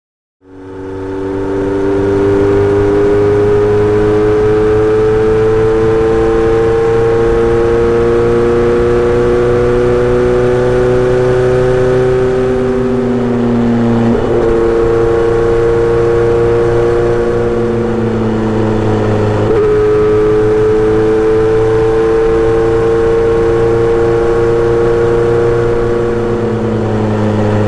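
Kawasaki Z900RS inline-four motorcycle running through a Misty Kintaro short-pipe muffler with a 70 mm silencer, pulling steadily with its pitch slowly rising. The note breaks and steps twice, about halfway and about two-thirds through.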